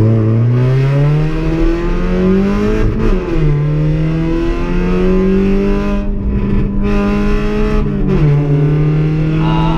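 Car engine accelerating through the gears, heard from inside the cabin. Its pitch climbs from a low idle, then drops at an upshift about three seconds in and again about eight seconds in, climbing more slowly after each shift.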